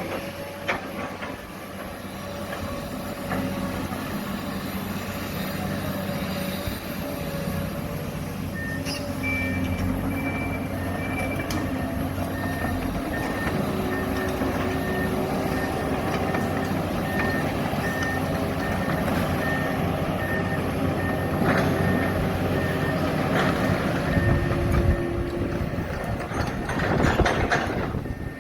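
Heavy machinery diesel engines running on a loading site, with a reversing alarm beeping steadily from about eight seconds in.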